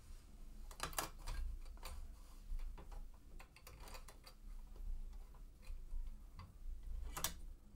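Faint, irregular small clicks and taps of quilting pins and fabric being handled while block pieces are pinned together.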